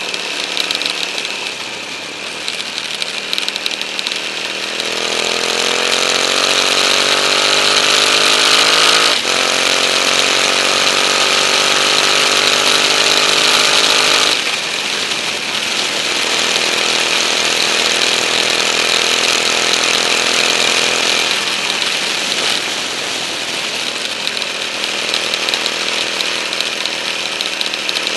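KTM 950 Adventure's V-twin engine under way, its pitch climbing under acceleration, dropping sharply at a gear change about nine seconds in, climbing again, then falling back about fourteen seconds in and holding steadier before easing off and building once more near the end. Heavy wind rushes over the bike-mounted camera.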